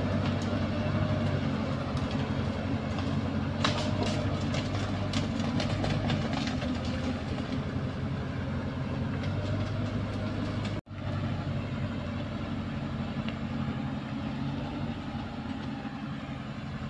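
Loaded Cửu Long truck's diesel engine running steadily at a crawl, with tyre chains on all four wheels clanking and rattling on the muddy track. The sound cuts out for an instant about two-thirds of the way through.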